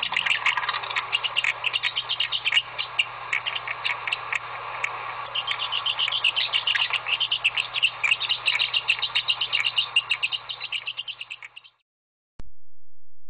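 Small birds twittering in a dense run of quick, high chirps over a low steady hum. The chirping fades out and stops near the end.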